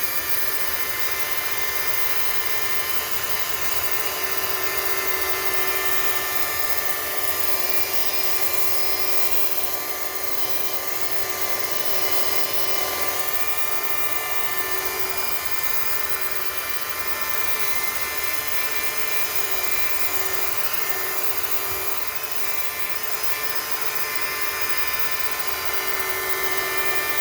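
Hercules rotary polisher with a backing pad and sanding disc running steadily while sanding body filler on a fiberglass panel: a constant whine from the motor over the noise of the abrasive disc on the filler.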